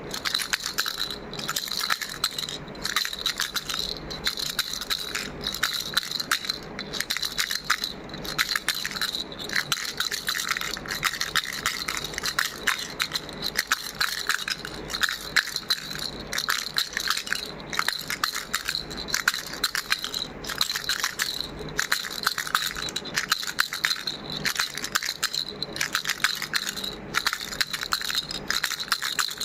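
Baby rattle shaken continuously: a dense clatter of small loose pieces, pulsing a little slower than once a second with each shake.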